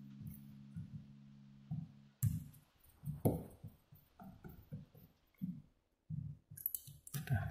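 Background music with sustained tones fades out over the first two seconds. Then come irregular clicks and knocks as an electric fuel pump assembly is handled and worked with a screwdriver.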